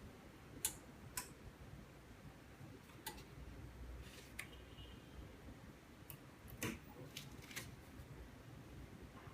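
Faint, irregular clicks and taps of tools and hands working on a phone LCD during manual glue removal, about eight of them spread unevenly, over a low steady hum.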